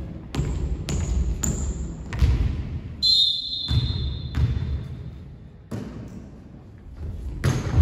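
Indoor volleyball play: a string of sharp slaps and thuds as the ball is hit and strikes the court floor, with a high sneaker squeak on the court lasting about two seconds in the middle.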